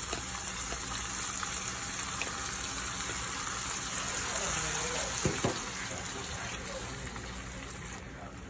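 Green herb purée hitting hot oil and toasted rice in a pot and sizzling, while a spatula stirs it through; the sizzle eases off over the last few seconds as the liquid settles in. A single sharp knock comes a little past five seconds in.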